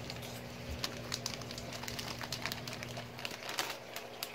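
Plastic fish-shipping bag crinkling and crackling as it is handled, in irregular sharp ticks. Under it runs a steady low electrical hum.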